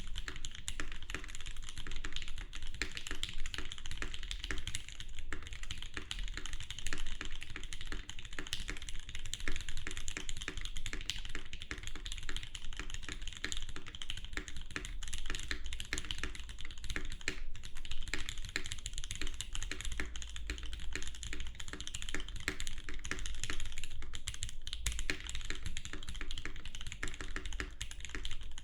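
Continuous typing on a SquishEE 65% custom mechanical keyboard with a polycarbonate case and aluminium plate, fitted with lubed and filmed Gateron Ink linear switches and GMK keycaps: a dense, steady stream of keystrokes.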